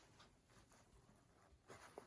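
Near silence: quiet room tone with a faint rustle near the end.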